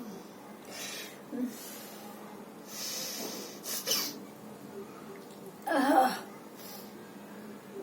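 A woman with a cold sniffing and drawing sharp breaths through her nose several times, then a short, loud voiced burst about six seconds in.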